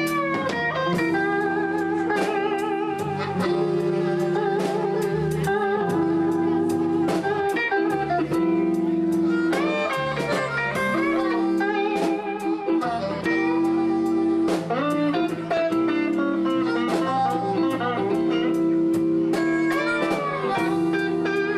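Live blues band playing an instrumental passage: guitar lines bend and sustain over a steady beat.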